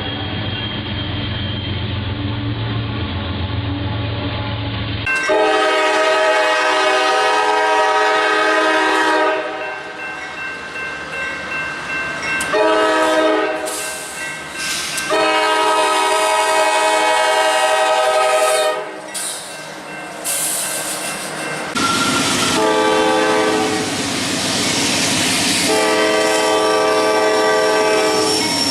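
Nathan Airchime K5LA five-chime locomotive horn sounding a sequence of blasts: three long blasts of three to four seconds each, with two short blasts between, over the noise of a passing train. The first few seconds hold a low locomotive rumble with the horn faint before the loud blasts begin.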